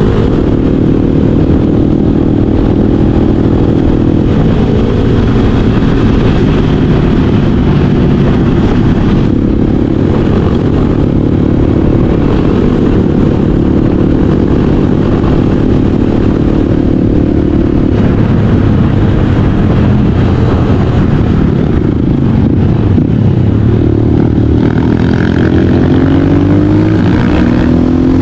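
Motorcycle engine running under load, its pitch rising and falling with the throttle near the end.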